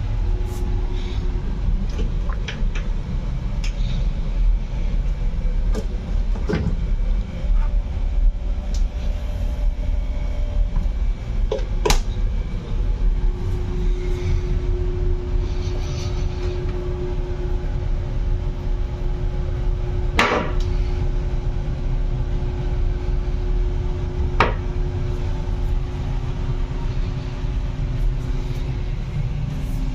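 A steady low rumble of room noise, with a faint steady hum that sets in about halfway through. Several sharp clicks and knocks are scattered through it; the loudest is a short rattle about two-thirds of the way in.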